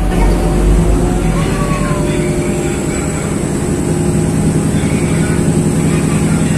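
The KRDI diesel railcar heard from inside the carriage as it runs along the line: a steady engine and drivetrain drone with several held tones, including a thin high whine, over a fast rough rumble from the running gear.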